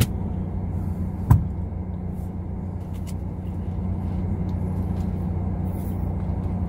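Car engine idling, a steady low hum heard from inside the cabin, with one sharp click about a second and a half in.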